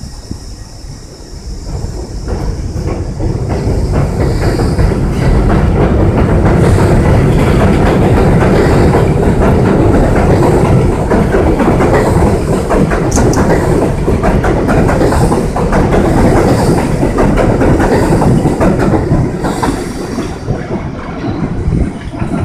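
R62A subway train pulling out of a station and running past: wheels clattering over the rail joints, growing louder over the first few seconds, steady and loud through the middle, then fading near the end as the last cars pull away.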